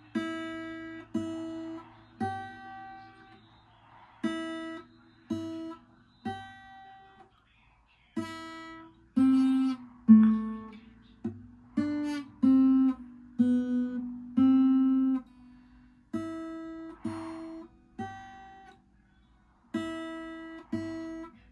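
Acoustic guitar played solo, plucked chords and single notes, each ringing and fading, mostly about a second apart. The middle has a louder run of notes, and there are short pauses between phrases.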